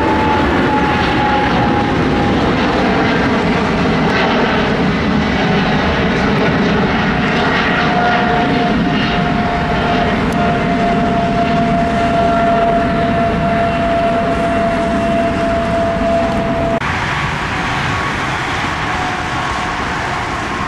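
Airplane engines running loud and steady as a plane goes by, with a high whine that slowly drops in pitch. About seventeen seconds in, the sound changes abruptly to a slightly quieter stretch of similar engine noise.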